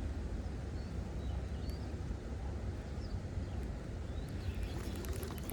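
Wind buffeting the microphone as a steady low rumble, with a few faint bird chirps and a short run of faint clicks near the end.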